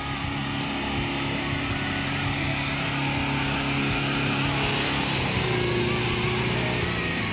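Mitsubishi dual-cab ute's engine running at steady revs under load as it climbs a steep, muddy track.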